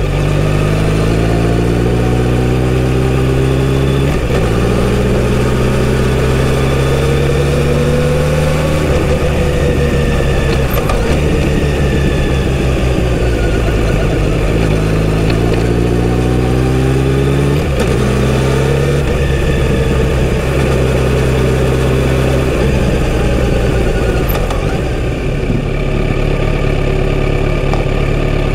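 Kawasaki Z900RS's 948 cc inline-four motorcycle engine pulling away, its note climbing in pitch through the gears with quick dips at the upshifts, easing off in the middle and pulling again. Near the end it drops to a steady idle.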